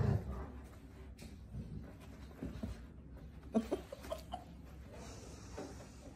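A dog spinning in circles chasing its tail, making a few brief vocal sounds, the loudest right at the start and a short cluster about three and a half to four seconds in.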